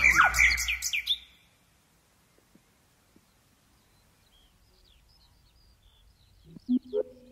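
Recorded songbird calls woven into ambient music: a burst of quick chirps over low music fades out within the first second and a half, then faint high chirps come back in, and pitched musical notes enter again near the end.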